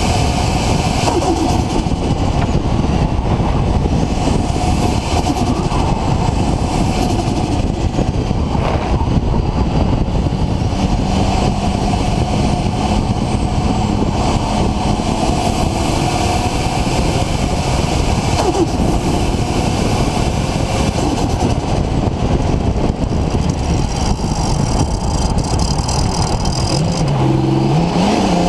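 Car with a Nissan RB26 straight-six engine and Garrett GTX4088R turbo running, under a loud, even rush of noise. Near the end the engine note climbs as it revs up.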